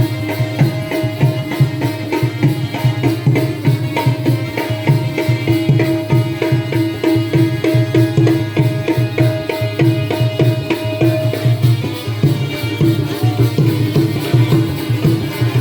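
Jakhadi folk-dance accompaniment: a hand drum played in rapid strokes over a steady held note, with no singing.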